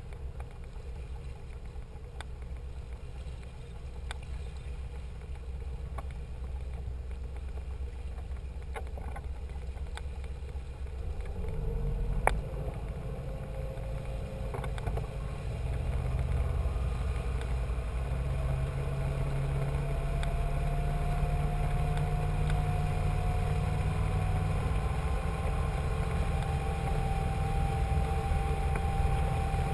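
Cruiser's engine running under way, picking up about a third of the way in: the low drone grows louder and a faint whine slowly rises in pitch. There is one sharp click near the middle.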